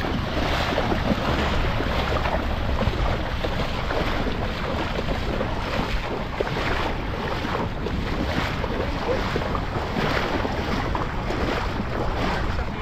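Rubber boots wading through shallow seawater, splashing with each step in a steady walking rhythm.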